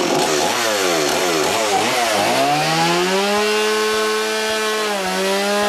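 Stihl two-stroke chainsaw revving up and down several times, then held at a steady high speed.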